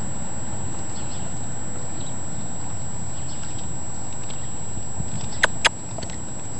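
Steady wind noise on the microphone, with a few faint ticks and two sharp clicks about five and a half seconds in, after which the noise drops.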